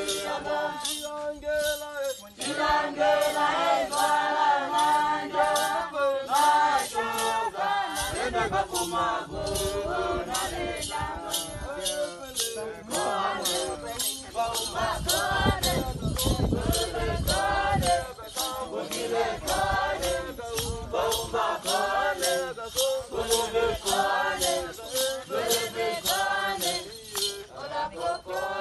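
Hadzabe dancers singing together in a traditional dance song, over a steady rattling beat about twice a second. A low rumble runs underneath through the middle stretch.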